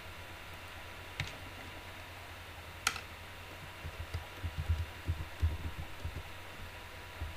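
Typing on a computer keyboard: two sharp clicks in the first three seconds, then a quick run of dull keystrokes from about four to six and a half seconds in, over a steady low hum.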